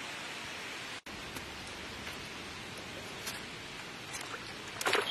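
Steady outdoor background hiss that cuts out for an instant about a second in, with a few faint rustles and one louder, short rustle near the end.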